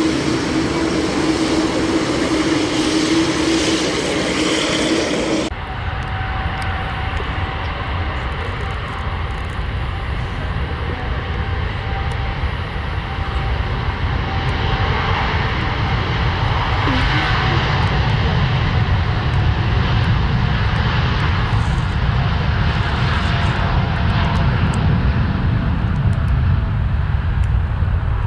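A Boeing 787's jet engines running. For the first few seconds they give a steady whine; after an abrupt change about five seconds in, a deep rumble builds and grows louder through the second half as the airliner gathers speed on its takeoff roll.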